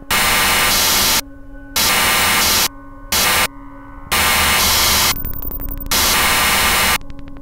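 Experimental industrial noise music: harsh static cutting abruptly on and off in about five blocks of a fraction of a second to a second, over a steady electrical hum. A rapid run of clicks comes between about five and six seconds in.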